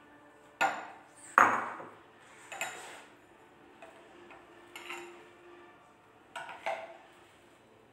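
A spoon knocking and clinking against a glass mixing bowl while a thick chocolate mixture is stirred and scooped. There are about half a dozen scattered knocks, the loudest about a second and a half in.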